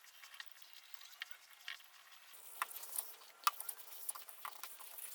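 Faint, scattered light clicks, taps and rubbing of hands handling the piece and applying finish, with a soft hiss joining about two seconds in.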